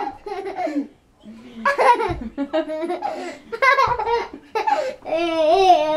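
Toddler laughing and giggling in short bursts.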